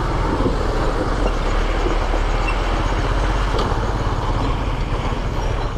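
Yamaha FZ motorcycle being ridden slowly through mud, its single-cylinder engine running steadily with road and wind noise on the microphone.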